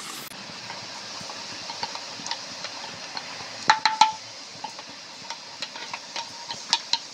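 Boondi batter dripping through a perforated ladle into hot oil, sizzling steadily as the drops fry. About four seconds in there are a few sharp metallic clinks of the ladle against the pan, and more light clicks near the end.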